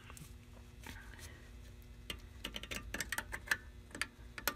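Needle-nose pliers working a drum brake shoe's hold-down spring cup against its pin, pressed down and twisted: small, light metallic clicks and scrapes, scattered at first and coming in a quick run over the second half.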